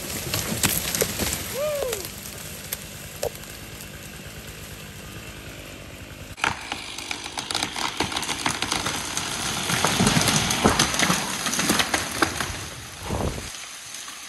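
A chainsaw running in the first seconds, then a large dead hemlock falling, crashing through branches and hitting the ground about ten seconds in.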